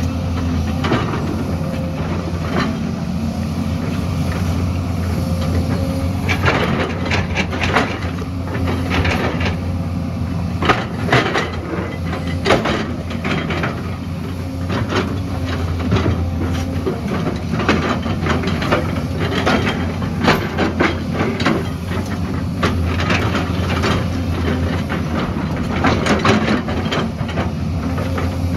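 A heavy earthmoving machine's engine runs steadily, with irregular knocks, clanks and scrapes throughout as stones and metal strike.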